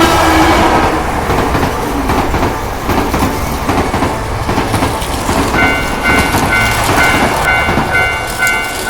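Plarail toy train running along plastic track with a busy rattling clatter. From a little past halfway, a level-crossing alarm joins in: a two-tone ding pulsing about twice a second.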